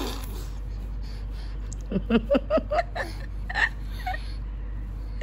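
Steady low room hum. About two seconds in comes a quick run of short laugh-like voice sounds, then a couple of softer ones near four seconds.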